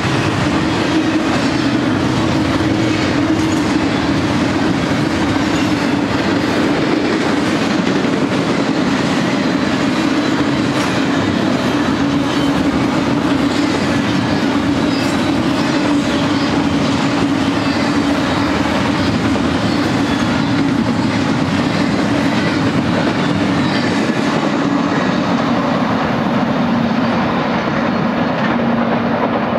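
Double-stack intermodal container train rolling past: steel wheels clicking over the rail joints over a steady rumble, with a low hum that slowly drops in pitch. The crisp clatter dulls near the end as the train pulls away.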